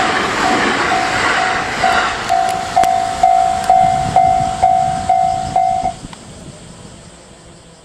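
Level-crossing warning bell ringing about twice a second, with a sharp strike at each ring, stopping about six seconds in. A passing electric train's running noise fades over the first couple of seconds.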